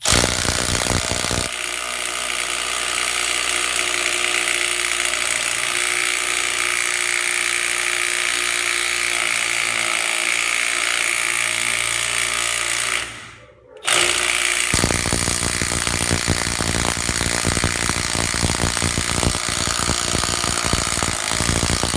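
Milwaukee M12 3/8-inch impact wrench hammering on a lug nut in two long runs, about thirteen seconds and then about eight, with a short pause between. The nut does not break loose.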